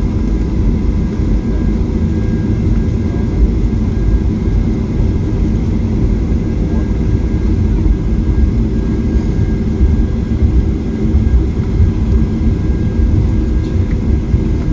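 Cabin noise inside a Boeing 737-800 taxiing: a steady low rumble from the CFM56 jet engines at taxi idle and the rolling aircraft, with a few faint steady whining tones above it.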